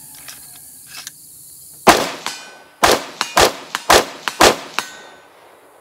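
Five rapid semi-automatic shots from an AR-15 with an 18-inch .223 Wylde Radical Firearms upper, spaced about half a second to a second apart, the first the loudest. The rifle cycles every round with an APF nickel boride bolt carrier group fitted.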